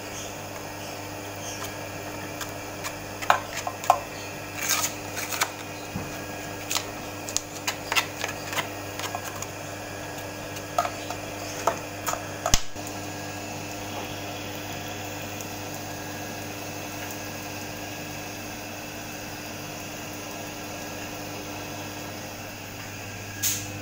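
A brush and small scraper working thick solid grease into the metal gear housing of a spice-mixing machine: scattered clicks and taps of the tool against the housing over a steady low hum, ending with one sharp click about halfway, after which only the hum remains.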